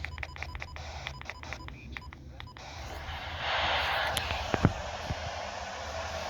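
A quick run of short electronic touch-tone beeps, about five a second, stops after about two and a half seconds. A radio receiver's static hiss then comes up, loudest around the middle, with a couple of sharp clicks, and carries on steadily.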